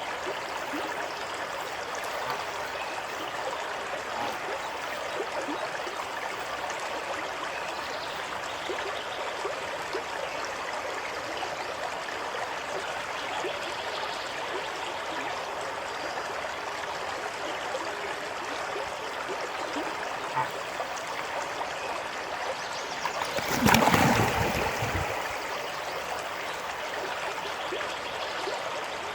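Steady trickling of running water at a pond. About 24 s in, a loud burst of noise cuts in briefly, then fades.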